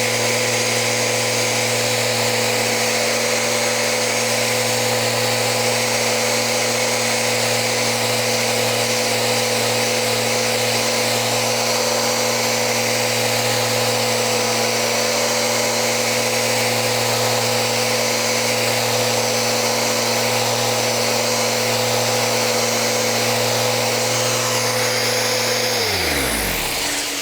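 Festool RO 90 DX sander running steadily while sanding the edge of a cocobolo board with 220-grit abrasive. Near the end it is switched off, and its pitch falls as the motor spins down.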